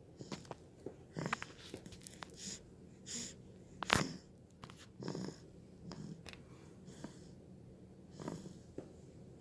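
A two-month-old baby snoring in its sleep: short, noisy, irregular breaths with small clicks, the loudest about four seconds in.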